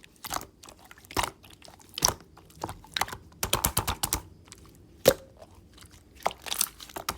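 Clear slime being worked by hand, making irregular sharp clicks and pops, with a quick run of them about three and a half seconds in.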